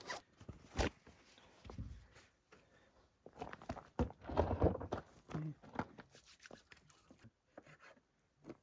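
Irregular knocks and clatter of camp cooking gear being handled, busiest in the middle, with light knife taps on a cutting board near the end.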